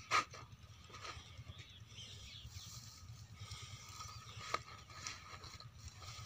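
Flat plastic lay-flat irrigation pipe being handled and straightened on sand: one scrape at the very start, then faint rustling, with a single sharp click about four and a half seconds in.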